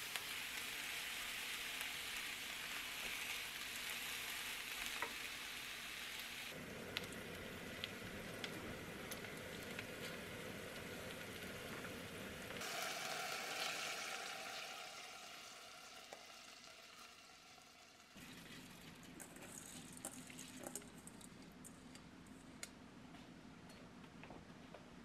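Food frying in hot oil with a steady sizzle and light taps and scrapes of a silicone spatula: sliced eggplant frying in a pan, then sliced garlic frying in oil in an enamelled cast-iron pot. The sizzle changes abruptly a few times and is quieter in the last several seconds.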